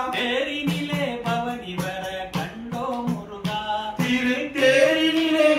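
A group of men singing a Tamil devotional bhajan to Murugan together, unaccompanied voices over a steady percussive beat.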